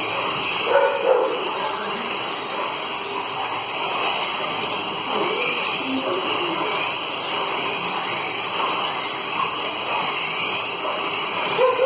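1/24-scale Formula Truck slot cars racing on a multi-lane slot car track: a steady high whine of their small electric motors, rising and falling a little as the cars pass.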